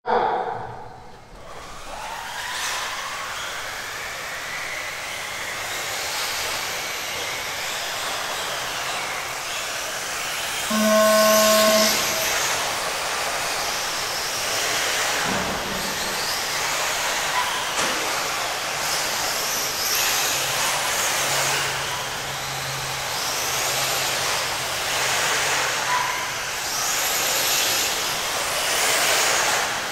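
Radio-controlled cars racing on a dirt oval: a continuous whine and tyre hiss that swells and fades as the cars pass. About eleven seconds in, a short horn-like tone sounds for about a second.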